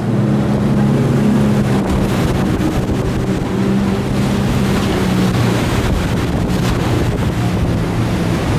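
A fast boat's engines run at speed with a steady drone, under wind on the microphone and the rush of water against the hull through churning tidal whitewater. The rushing grows louder about two seconds in.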